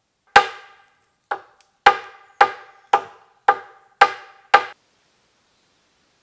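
Hatchet blows on a log: eight sharp strikes, each ringing briefly. The first is alone, the rest come about half a second apart, and they stop a little under five seconds in.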